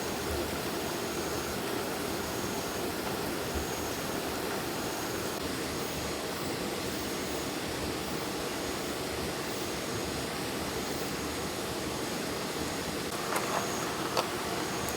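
Steady rushing of a flowing forest stream, with a faint high-pitched tone fading in and out. A few light knocks come near the end.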